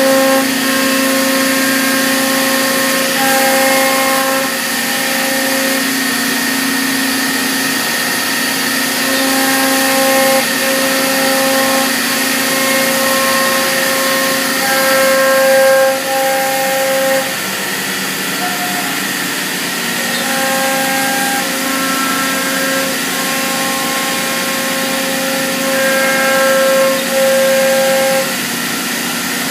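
C.R. Onsrud Panel Pro CNC router running and cutting wood panels: a steady spindle whine with a mix of higher tones that shift every second or two as the cut goes on.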